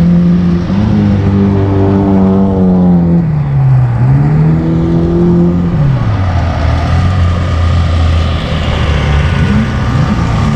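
Drift car engine revving hard, its pitch dipping and climbing again as the throttle is worked, then dropping to a lower pitch about six seconds in.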